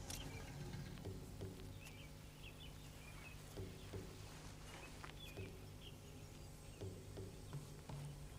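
Faint woodland ambience: scattered short bird chirps over a low steady hum.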